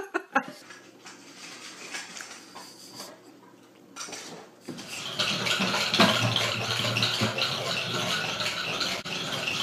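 Faint room sound, then about five seconds in a busy run of plastic clattering and rattling as a cat paws at a small plastic toy on the floor.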